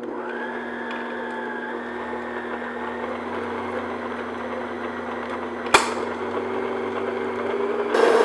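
Electric stand mixer running steadily, its paddle beating a cream cheese filling with powdered sugar in a glass bowl: a steady motor hum with the paddle churning the mix. There is one sharp click about six seconds in, and the mixer gets louder near the end.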